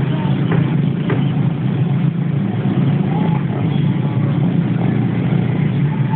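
Steady low rumble of a running vehicle engine, with a few faint short tones over it.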